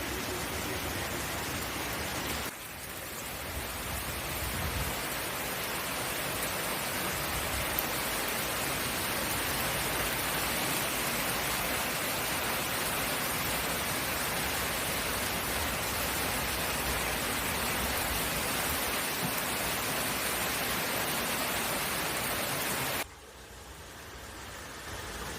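Heavy rain pouring down steadily, a deluge. The sound drops off suddenly near the end.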